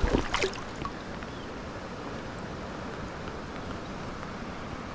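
River current flowing, a steady rushing wash, with a few short knocks in the first half second.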